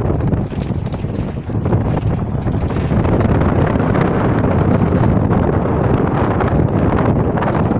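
Wind buffeting the microphone, heard as a loud, steady, fluttering rumble.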